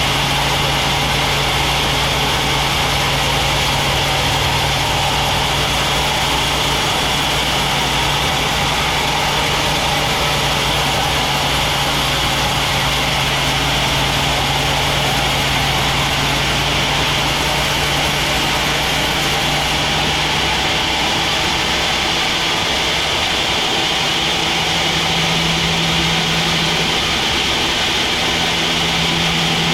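Sawmill machinery running steadily: a motor's steady hum under a bright whine from the saw. About two-thirds of the way through, the high hiss eases and the low hum shifts slightly higher.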